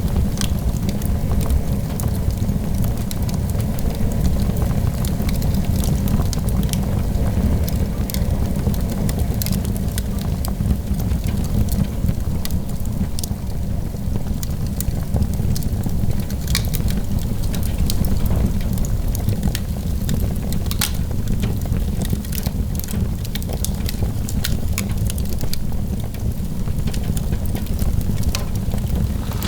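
Fire burning in a fireplace: a steady low rumble of flames with frequent small crackles and sharp pops.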